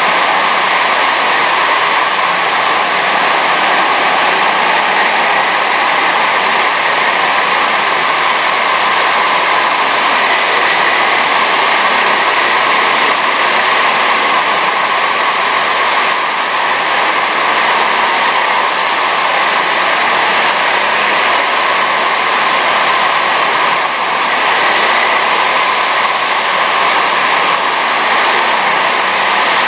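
Steady, loud roar of several 6.5 hp rental kart engines racing around an indoor kart hall, blurred together by the hall's echo so that no single engine stands out.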